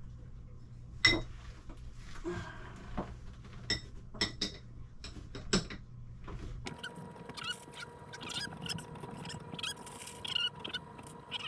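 Light clicks and taps of tile pieces being handled and set into adhesive, the sharpest about a second in. About two-thirds through the background changes to a steady hum, with many quick small clicks and squeaks of the same tiling work.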